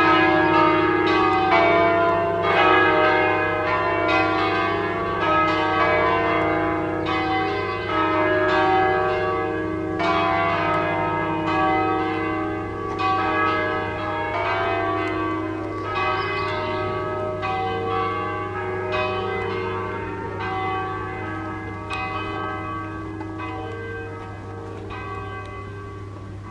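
Swinging church bells of an eight-bell tower tuned in E-flat, ringing a full peal of irregular, overlapping strokes that each hum on after the strike. The peal fades steadily through the second half as the ringing dies away.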